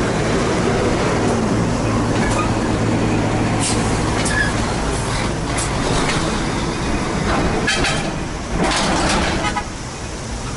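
Heavy diesel semi-tractor trucks hauling shipping containers and empty container chassis pass close by: a steady low engine drone for the first few seconds, then several short sharp rattles and hisses as the rigs go past.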